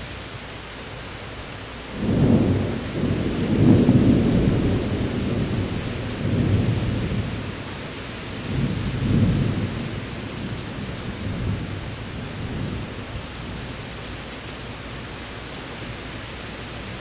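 Thunderstorm: steady rain with a deep roll of thunder that breaks suddenly about two seconds in, rumbles on in several swells and fades away over about ten seconds.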